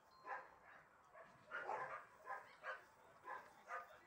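Faint, repeated short yelps from a young puppy, about seven calls spaced roughly half a second apart.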